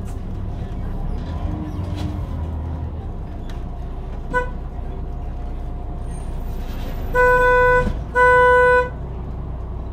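A vehicle horn gives one short toot about halfway through, then two longer honks about a second apart near the end. Under it runs a steady low rumble of engine and street traffic.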